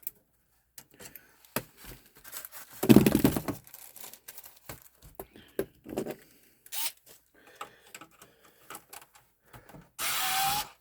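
Clicks, knocks and scraping of plastic and metal computer-case parts being handled, with a louder knock about three seconds in. Near the end a cordless power screwdriver runs briefly, its whine rising, as it backs out a screw.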